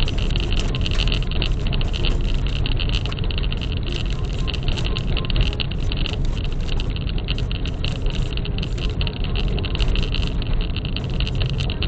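Car driving over rough off-road ground: a steady low rumble of engine and tyres, with frequent small clicks and rattles.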